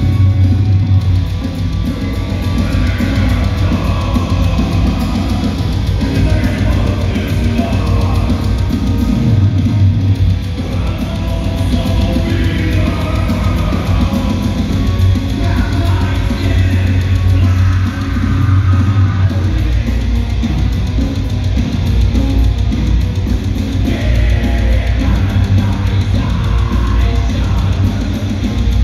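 Live rock band playing electric guitars and drum kit, loud and heavy in the low end, with no break.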